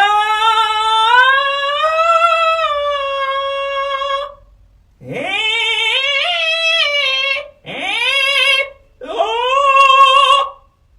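A man's voice doing a wordless vocal warm-up: four high held notes, each swooping quickly up from low into the pitch, the first long and the later ones shorter.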